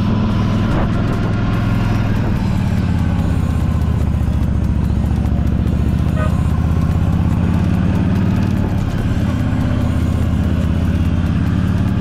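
Yamaha V Star 1300's V-twin engine running steadily at an even speed.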